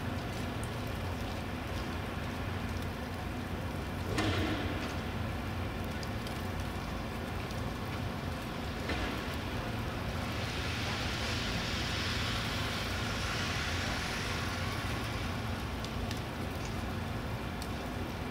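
City street ambience in snowfall: a steady low traffic hum, with a brief louder noise about four seconds in. A vehicle's tyres hiss past on the wet, slushy street, swelling from about ten seconds in and fading by about fifteen.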